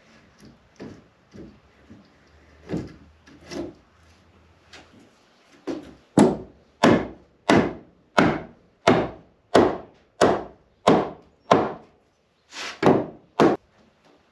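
Wooden handrail being knocked into its snug-fitting joints with a hand-held block of wood. A few light knocks at first, then from about six seconds in a steady run of hard wooden blows, about three every two seconds, and a few more near the end.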